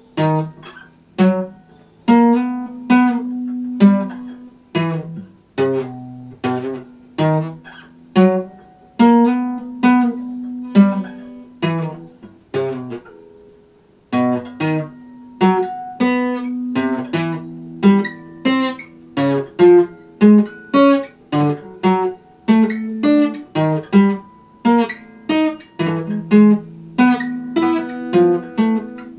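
Epiphone acoustic guitar played solo: picked melody notes and chords over lower bass notes in a steady, unhurried rhythm, with a brief pause about thirteen seconds in before the playing resumes.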